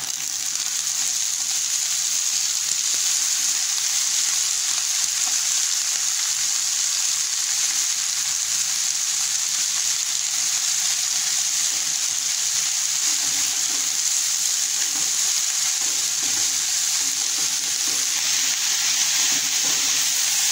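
Chopped gandana (Afghan leek) and coriander hitting hot oil and fried onions in a nonstick pot: a steady sizzle that swells as the greens go in, with a spatula stirring through them near the end.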